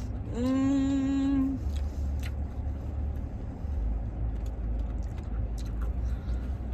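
A person's voice hums one steady note for about a second near the start, over a low steady rumble.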